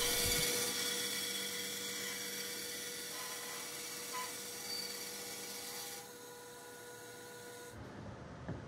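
Band saw running and cutting a curve through a pine 2x4: a steady motor hum with the hiss of the blade in the wood, gradually getting quieter and dropping about six seconds in. Near the end it gives way to a quieter background with one light knock.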